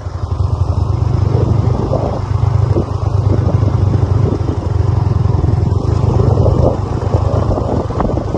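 Motorcycle engine running steadily while the bike is ridden along, heard from the pillion seat.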